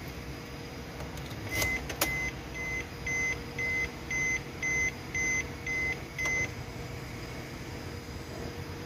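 A Suzuki Ertiga's dashboard warning buzzer beeps about ten times, roughly two beeps a second, as the ignition key is switched to the accessory (ACC) position. It follows a couple of sharp clicks from the key switch.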